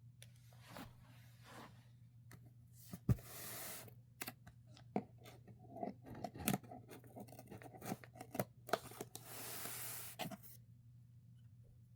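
Keyboard box packaging being opened by hand: scattered clicks and taps of cardboard and plastic, with two longer tearing noises about three seconds in and again near ten seconds, over a low steady hum.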